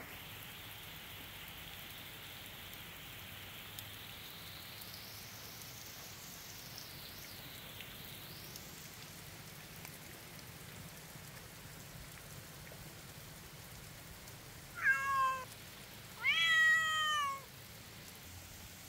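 A ginger domestic cat meowing twice near the end, first a short meow, then a longer one, over a steady faint hiss.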